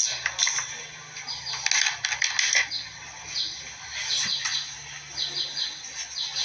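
Small birds chirping in quick runs of three or four short high notes, repeated every second or two, with scattered sharp clicks and a low steady hum beneath.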